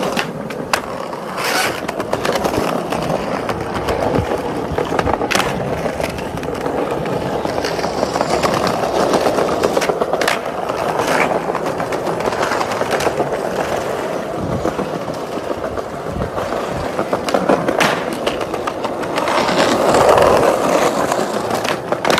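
Skateboard wheels rolling over paving tiles, a steady rolling noise that swells near the end, broken by several sharp clacks of the board.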